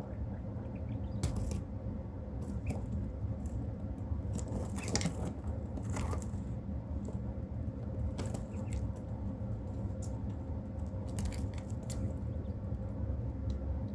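Quail moving about, making scattered light taps and rustles over a steady low rumble and a faint hum.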